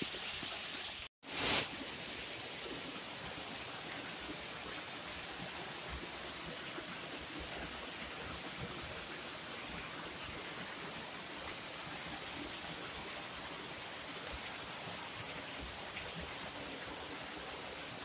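Steady rush of a small waterfall pouring over rocks. The sound cuts out for an instant about a second in, followed by a short, louder burst of noise.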